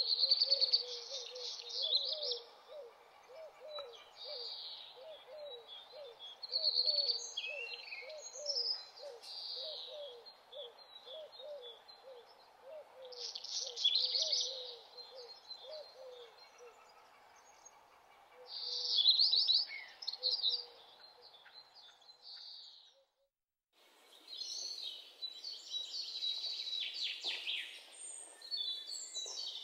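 Birds chirping and singing in short bursts over a low call repeated about twice a second. The sound drops out briefly about two-thirds of the way through, then birdsong resumes over a steady hiss.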